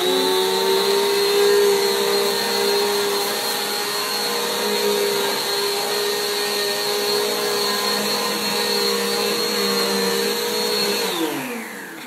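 Dirt Devil Vigor Cyclonic Pet bagless upright vacuum running loud and steady as it vacuums debris off a bare wood floor. About eleven seconds in it is switched off, and its pitch falls as the motor winds down.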